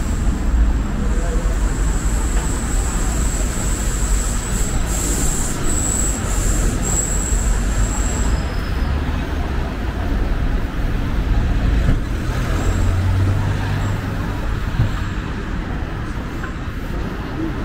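City street traffic: a steady low rumble of passing cars and buses. A thin high whine runs through the first half and stops about eight seconds in.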